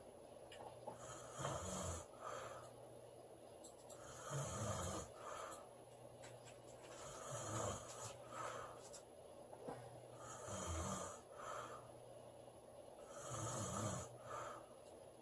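A girl snoring in her sleep, one snore about every three seconds, five in all, each a low rattle with a breathy hiss.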